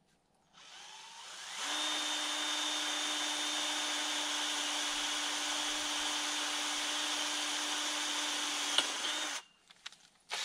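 Electric drill spinning up about half a second in, then running steadily at one speed for about eight seconds before stopping suddenly.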